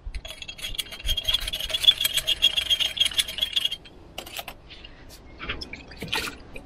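A pointed metal tool scraping a rust plug out of a small brass fuel-line fitting from a diesel grader's fuel system: rapid scratching strokes with a thin squeaky tone, stopping a little before halfway, followed by a few light clicks and taps.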